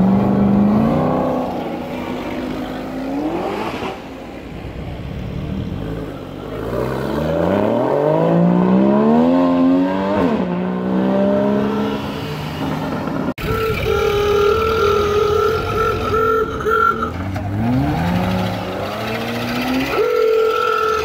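Sports car engines accelerating hard away, the pitch climbing through the gears with a sharp drop at an upshift; the first is a Ford GT's supercharged V8. After a cut, another engine holds a steady note at raised revs for a few seconds, then climbs again near the end.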